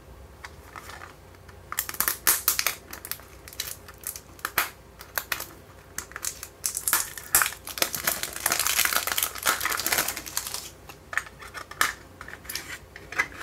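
Thin cellophane wrapper crackling and crinkling as it is torn off a plastic MiniDisc case, with scattered sharp crackles and a long stretch of dense crinkling in the middle.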